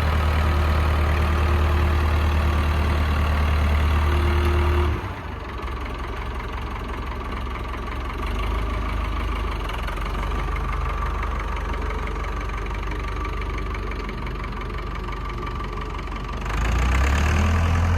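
Tractor engine running steadily. About five seconds in it drops to a lower, quieter, rougher running, and it rises back to the earlier steady level near the end.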